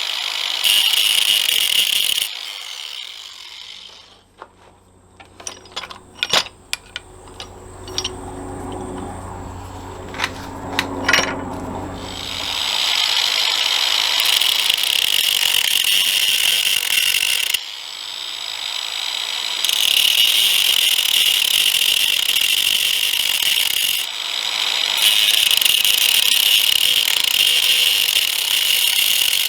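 A power tool abrading a small metal piece: a steady, high hiss in passes several seconds long with short breaks. A quieter stretch in the middle holds a string of light clicks and taps.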